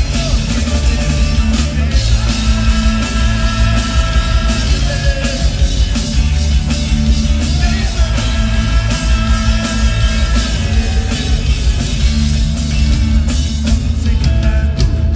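Rock band playing live at full volume, with a driving drum kit and heavy bass.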